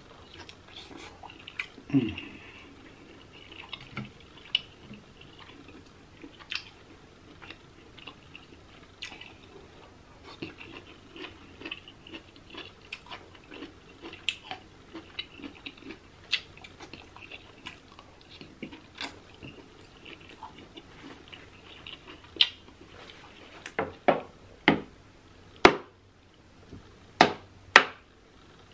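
Close-miked eating sounds: wet chewing and smacking of shrimp, with many small clicks. Near the end, a run of louder swallows as water is drunk from a plastic bottle.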